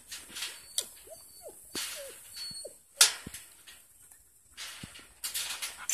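A man climbing a metal pipe gate: a sharp knock about three seconds in, bursts of rustling and scuffing, and a few short squeaks.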